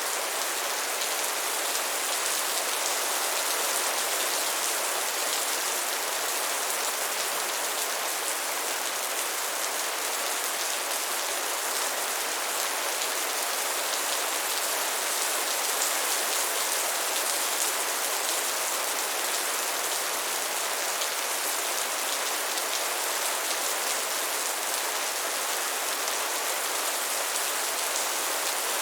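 Heavy rain falling steadily in a downpour, an even hiss of countless drops with no thunder or change in strength.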